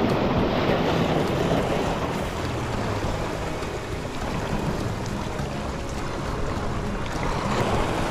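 Sea waves washing against shoreline rocks, swelling near the start and again near the end, with wind buffeting the microphone.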